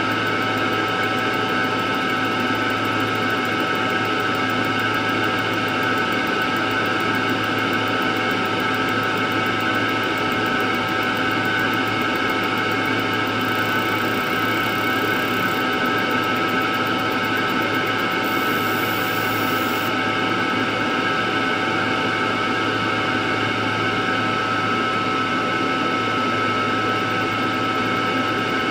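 A mini laser machine and its fume extractor run steadily, giving a constant hum under several held whining tones while the machine works on an iPhone's back glass.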